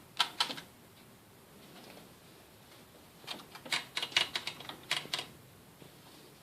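Keys of a Rheinmetall typewriter striking: three quick strokes at the start, a pause of a few seconds, then a quick run of about ten keystrokes that stops a little after the five-second mark.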